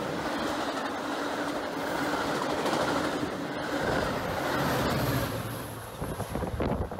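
Metra bi-level commuter cars rolling past close by, with a steady rumble and rattle of steel wheels on rail. About four to five seconds in the diesel locomotive passes and the sound swells, then fades as the train pulls away.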